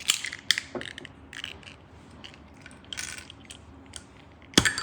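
Glass ramune soda bottle being handled: several sharp clinks and clicks, a short fizzing hiss about three seconds in, and a loud sharp knock near the end.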